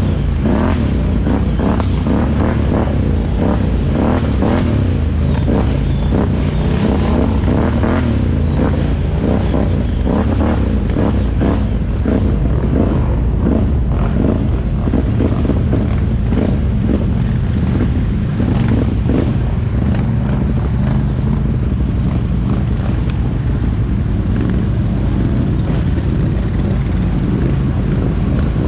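Can-Am ATV engine with a Yoshimura aftermarket exhaust running as the quad is ridden on a trail, its pitch rising and falling with the throttle. Frequent short knocks and rattles come through over it.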